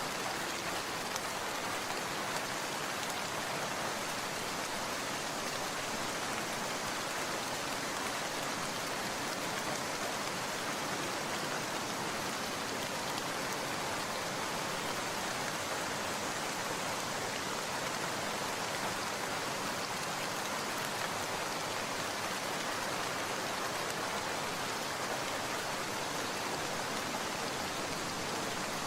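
Steady rain falling, an even hiss of many drops with no distinct strikes or changes.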